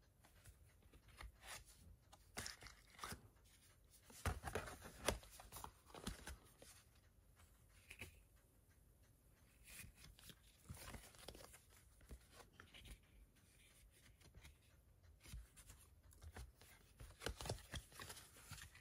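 Intermittent rustling, scraping and soft clicks of thick card and paper packaging being handled, loudest about four to six seconds in.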